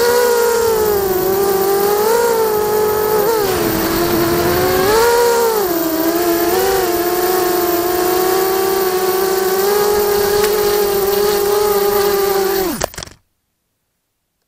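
ZMR 250 FPV quadcopter's brushless motors and propellers whining loudly, heard from its onboard camera, the pitch rising and falling with throttle. About 13 seconds in, the pitch drops with a brief clatter as the quad comes down in a crash, and the sound cuts off to dead silence.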